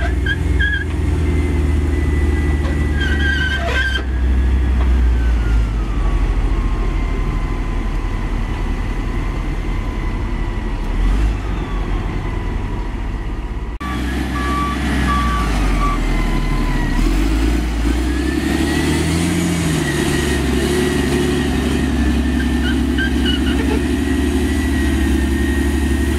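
Dynapac CT300 padfoot compactor running steadily as it travels, a deep engine rumble with a whine that slides down in pitch and later climbs back up. The sound changes abruptly about halfway through.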